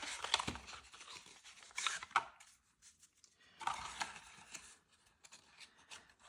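Trading cards and a cardboard box being handled and packed away: rustling and scraping with small clicks, a pause of about a second near the middle, then more rustling.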